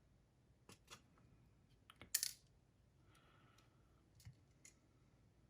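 Small plastic parts of a cassette walkman being handled on a work bench: a few light clicks and taps, the sharpest just after two seconds in, against near silence.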